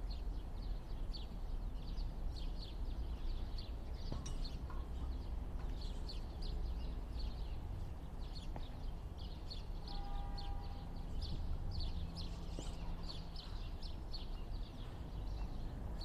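Small birds chirping rapidly and continually over a steady low rumble, with a brief steady tone about ten seconds in.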